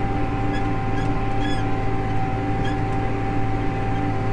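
John Deere 8400 tractor's diesel engine running steadily, with a constant whine over the drone and a few faint short chirps or squeaks.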